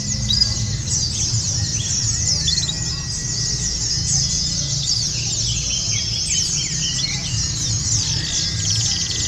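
Many white-eyes (pleci) singing at once in a dense, unbroken chorus of rapid high chirps and trills, the sort of contest chorus used to provoke caged white-eyes into singing. A low rumbling murmur runs underneath.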